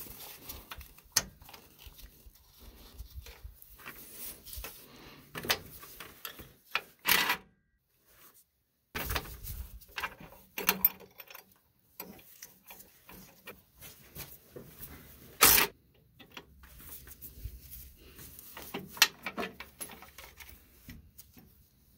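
A wrench working the fittings of a truck's air-brake tractor protection valve: irregular metal clicks, scrapes and knocks as the valve is unbolted and handled. The sharpest knocks come about 7, 15 and 19 seconds in.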